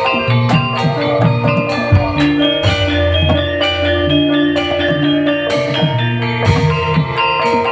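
Live instrumental music from a Javanese stage band: ringing struck metal-key percussion over drums and a low bass line, at a steady beat.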